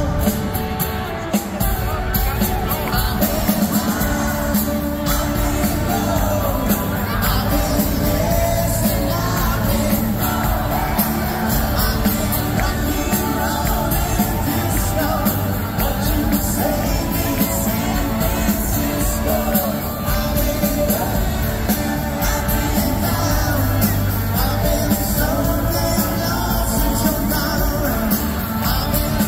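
Live pop-rock band playing through a PA: a male lead vocal over electric guitars, bass and drums.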